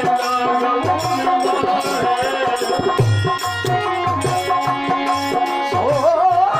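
Instrumental passage of a devotional folk song: tabla playing a steady teen taal rhythm under held melodic notes, with a rattling percussion. Near the end a voice slides upward into the next sung phrase.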